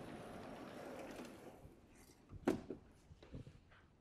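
Chalk on a blackboard: one sharp tap about two and a half seconds in, then a couple of lighter taps, over faint room noise.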